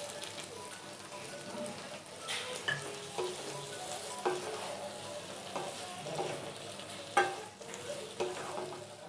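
Vegetables sizzling gently in a non-stick kadai over a low flame while a spatula stirs them, with scrapes and knocks of the spatula against the pan, the loudest about seven seconds in.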